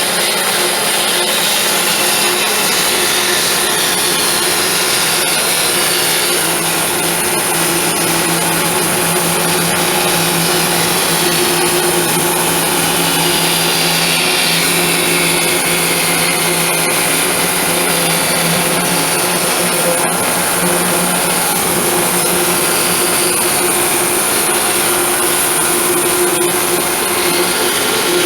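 Power tool running steadily as its blade cuts through a clamped workpiece, with a constant hum under the cutting noise.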